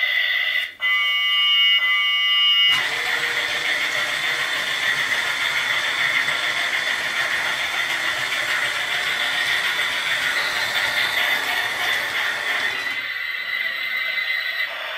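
Battery-powered toy steam locomotive running: a whistle-like chord of steady high tones for about two seconds, then a continuous hissing whirr from the running toy train.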